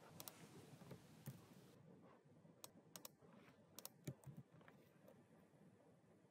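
Faint, scattered light clicks of a computer mouse and keyboard, a dozen or so, with a quick cluster about four seconds in, as the folder is pasted with Ctrl+V.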